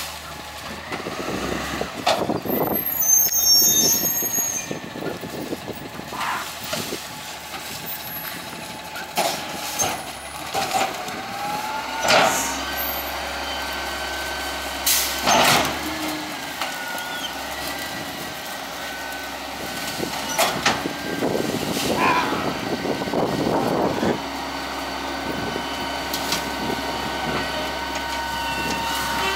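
McNeilus rear-loader garbage truck on a Peterbilt 348 CNG chassis running at the curb: a steady engine rumble with a whine that rises and falls in pitch. Over it come several sharp bursts and the crunching and rustling of branches and shrub clippings thrown into the rear hopper.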